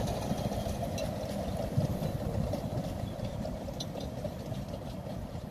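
Small 15-inch-gauge steam locomotive and its coaches running along the line, a steady low rumble that slowly fades as the train draws away.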